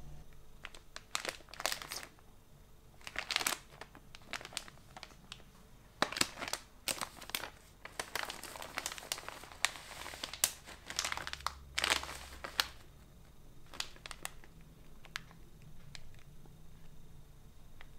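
Plastic snack packet crinkling in irregular bursts as hands handle it and pull its mouth open. The crinkling is busiest and loudest in the middle, then thins out to a few light crackles.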